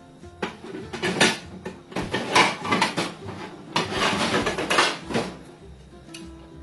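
Stuffed brinjals frying in hot oil in a pan, sizzling and crackling in three surges about a second long each, then settling quieter.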